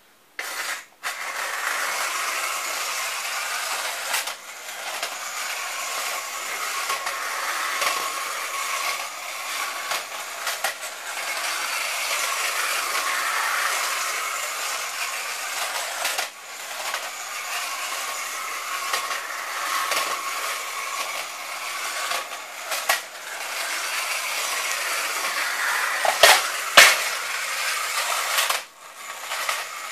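Tin toy train car running round a tin track, a steady metallic whirring and rattling of its mechanism and wheels with brief dips every several seconds, and two sharp clicks a few seconds before the end.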